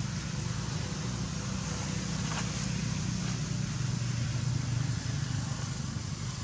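Steady low background rumble that holds at an even level throughout.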